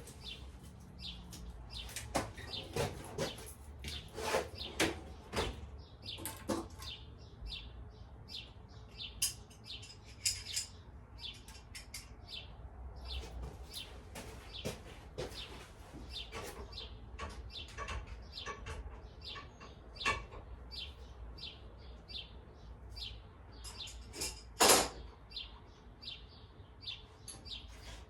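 Scattered clicks, taps and light metallic handling noises of hand tools and parts while a motorcycle ignition switch is being taken off, with one louder sharp click about three-quarters of the way through. Birds chirp in the background.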